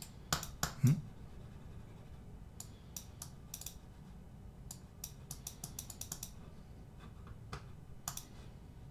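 Light clicking from computer mouse use: a few louder clicks with a low thud about a second in, then quick runs of small ticks like a scroll wheel.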